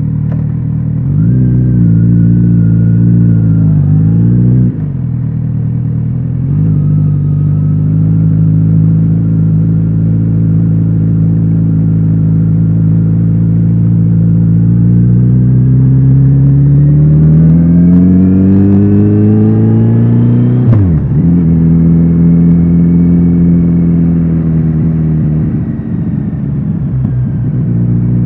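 Kawasaki Z900RS inline-four motorcycle engine and exhaust under way. It picks up and eases off early, holds a steady pitch while cruising, then climbs in a long rising pull and drops sharply about three-quarters of the way in, before settling back to a steady note.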